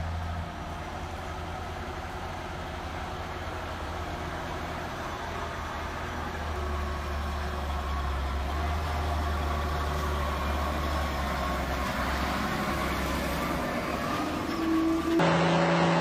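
Diesel engine of a loaded logging truck running as it drives slowly past, a steady low hum that grows louder as the truck comes closer. About fifteen seconds in the sound cuts abruptly to a louder, higher-pitched truck engine.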